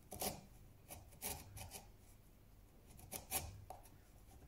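Hand chisel paring wood out of a shallow hinge recess: a handful of short, quiet scrapes as the edge cuts and levers out fibres, with the sharpest ones near the start and about three seconds in.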